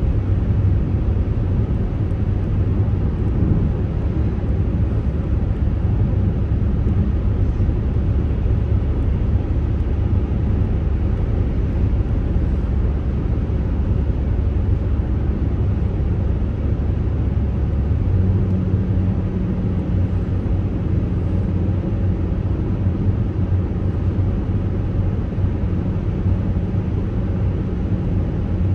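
Road and engine noise inside a moving car's cabin: a steady low rumble of tyres and engine. About eighteen seconds in, the deepest rumble eases and a steadier low hum takes over.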